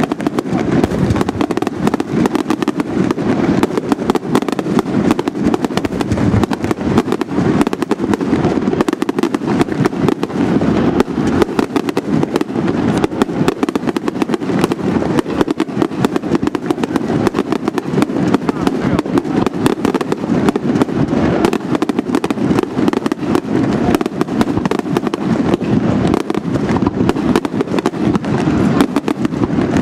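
Fireworks display: a dense, unbroken barrage of bangs and crackles, many reports every second at a steady, loud level.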